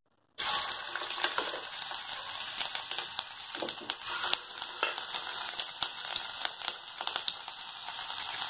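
Batter-coated cauliflower pieces hitting hot oil and deep-frying: a sizzle starts suddenly about half a second in and carries on steadily, peppered with many small crackling pops.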